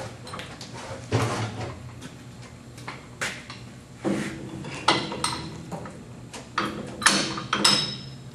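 Metal clanks and clinks as a steel cutting head is handled and fitted onto a brake lathe that is not running. There are several separate knocks, and a couple near the end ring briefly.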